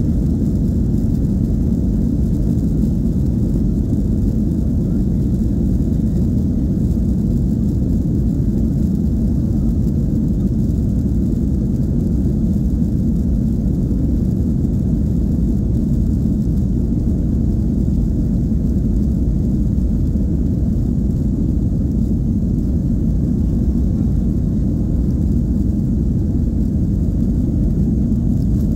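Steady low rumble heard inside the cabin of a Boeing 737-800 taxiing, its CFM56 engines at low thrust, with no rise in power.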